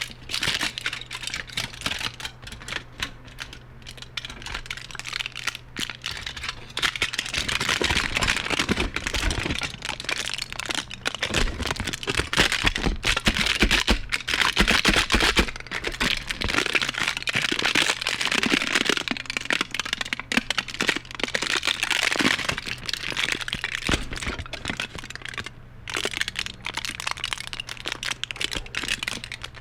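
Aluminum foil being handled and crumpled, a continuous dense crinkling and crackling full of sharp clicks. It grows louder and busier after about seven seconds and eases off again near the end.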